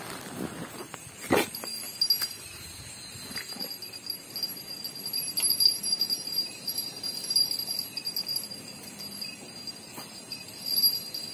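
A casting rod being cast, with a swish and then a sharp click about a second in. A high, pulsing jingle goes on behind it and swells about midway and again near the end.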